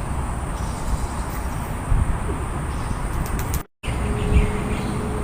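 Outdoor ambience: a low rumble like wind on the microphone under a steady high-pitched insect drone. The sound drops out completely for a moment about three and a half seconds in, then comes back.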